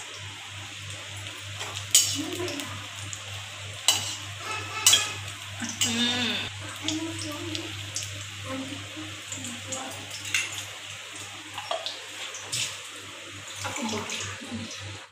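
Pakoras sizzling in hot oil in an iron kadhai, with sharp metallic clinks of a steel slotted skimmer against the pan, the loudest about two, four and five seconds in. A low steady hum runs underneath.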